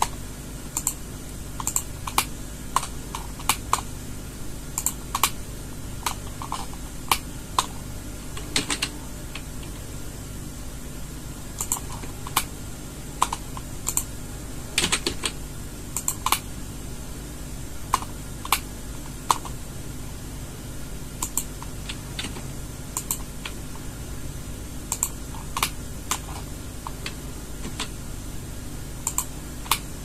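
Computer keyboard keys tapped in short, irregular clusters, single shortcut-key presses rather than continuous typing, over a steady low hum.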